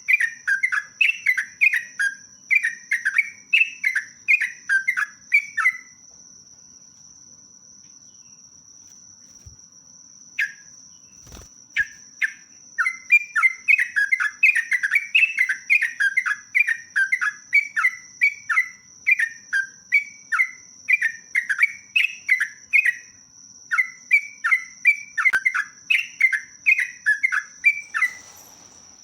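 Yellow-vented bulbul (trucuk) singing a long run of rapid chirping phrases, about three or four notes a second. It stops for about seven seconds after the first six seconds, then resumes. A faint steady high whine runs underneath.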